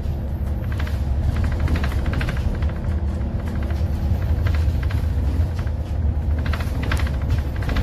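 Steady low rumble of a moving vehicle heard from inside, with faint higher rattles and tones over it.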